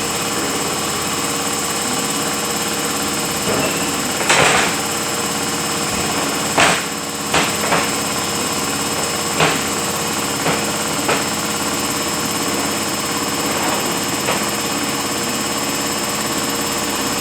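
Rebuilt truck transmission running on a test dyno: a steady machine hum with several fixed pitches. Several short, sharp clunks come between about four and fourteen seconds in.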